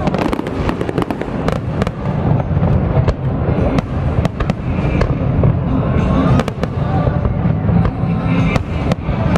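Fireworks going off in rapid succession: many sharp bangs and crackles over a continuous low rumble, with music playing underneath.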